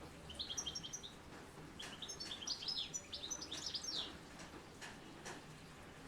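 Small songbirds chirping in quick, high twittering phrases: a short burst about half a second in, then a busier run from about two to four seconds in. Under them runs a faint, steady patter of light rain.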